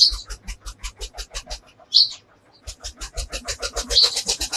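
Outdoor bird calls: short, high chirps about every two seconds over a rapid, even pulsing of about seven beats a second.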